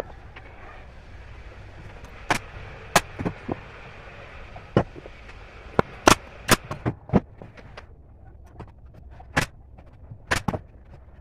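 Pneumatic brad nailer firing nails into thin wooden slats: a dozen or so sharp shots, irregularly spaced, some in quick pairs.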